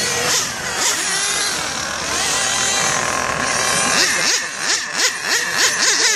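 Several 1/8-scale RC race cars running on the track, their engines overlapping and repeatedly rising and falling in pitch as they accelerate and brake, the quick up-and-down sweeps clearer in the last two seconds.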